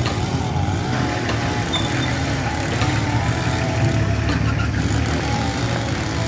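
Mitsubishi BD2F bulldozer running steadily while working, its engine humming low with occasional clanks.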